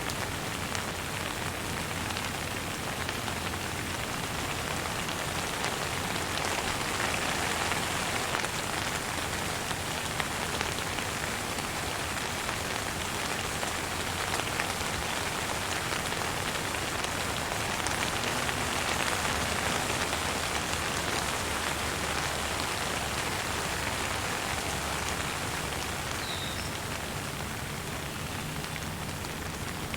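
Steady gentle rain, a dense even patter that swells slightly twice, with a single faint bird chirp near the end.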